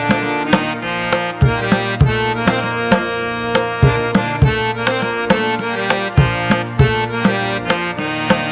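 Music with a steady beat: sharp drum hits and deep bass notes that slide down in pitch, under a held melody.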